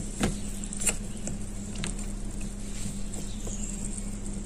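Knife blade prodding and scraping soaked lumps of gray clay and multani mitti in a plastic tub of water, giving scattered wet clicks and taps, the two loudest within the first second. A steady low hum runs underneath.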